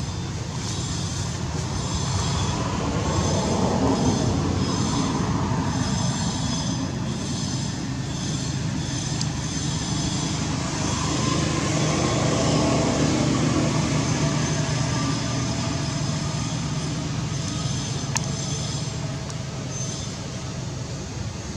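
Low rumbling background noise that swells around four and again around thirteen seconds in, with a high-pitched buzz over it that pulses about once a second in the first half and again near the end.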